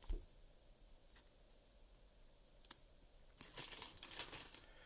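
Faint crinkling and rustling of a thin plastic penny sleeve as a trading card is slid into it, busiest in a cluster of quick rustles near the end, with a single small click midway.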